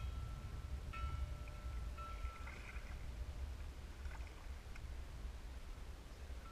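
Low rumble of wind on the microphone and water lapping against a kayak hull, with a faint thin whine that comes and goes in the first few seconds.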